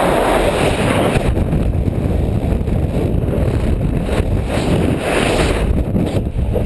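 Steady wind buffeting the action camera's microphone during a tandem parachute descent under an open canopy.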